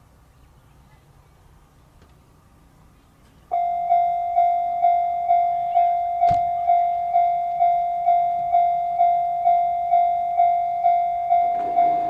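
Japanese level-crossing warning bell starting abruptly about three and a half seconds in, ringing a steady electronic ding about two and a half times a second to warn of an approaching train. There is a single sharp knock about six seconds in, and a lower rumbling sound joins near the end.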